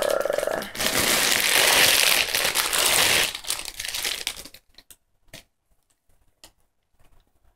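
Plastic packaging bag crinkling loudly as a bundle of hair extensions is handled and unwrapped. The crinkling lasts about four and a half seconds, then stops, leaving a few faint clicks.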